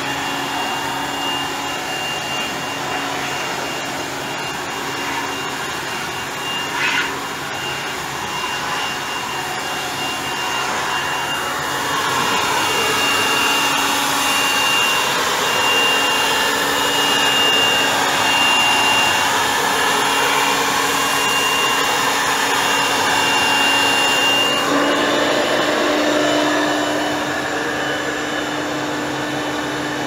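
Handheld electric blower running steadily, a constant motor noise with a thin high whine. It gets louder through the middle stretch, and there is a single short click about seven seconds in.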